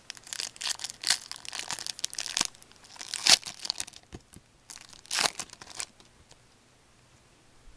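Foil wrapper of a 2007-08 Fleer Ultra hockey card pack crinkling and tearing as it is pulled open by hand, in irregular bursts of crackle that stop about six seconds in.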